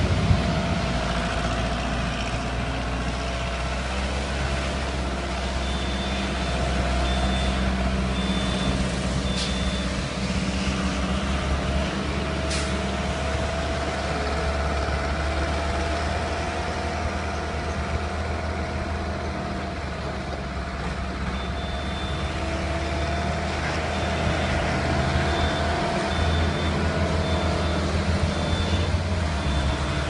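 Skid steer loader's engine running steadily as the machine works. A reversing alarm beeps in two spells, one about a fifth of the way in and another through the last third.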